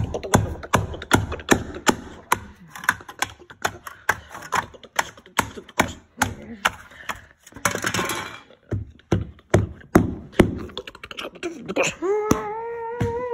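Plastic toy playset pieces clicking and clattering in quick, irregular succession as they are handled and pressed together. Near the end a held humming note, which falls in pitch as it stops.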